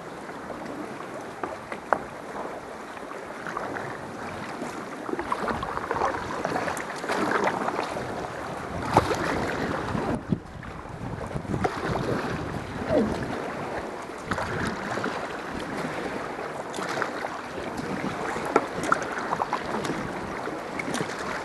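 Kayak paddles dipping and splashing in the water, a steady wash of water noise with occasional sharp knocks.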